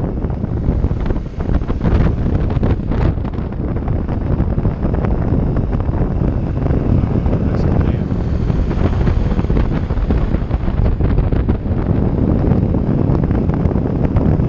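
Loud, steady wind noise buffeting the microphone of a camera riding along on a Honda Innova motorcycle.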